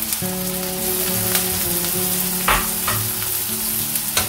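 Chopped onion, ginger, dried red chillies and coconut pieces sizzling in hot oil in a nonstick pan while being stirred with a silicone spatula. Two sharper scrapes of the spatula come through, one about halfway and one near the end.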